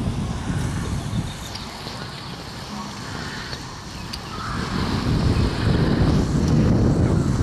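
Wind buffeting the built-in microphone of a Sony HX100v camera, a gusty low rumble that eases off a few seconds in and picks up again near the middle, over the ambience of an open beach.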